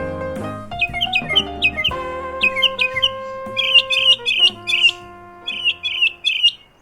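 A small bird chirping in quick runs of short, sliding calls over held notes of instrumental music; the music fades out past the middle and the chirps carry on alone.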